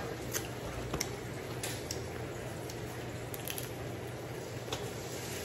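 Steamed blue crab being picked apart by hand and eaten: scattered small sharp cracks and clicks of shell breaking, with wet squishing of the crab meat.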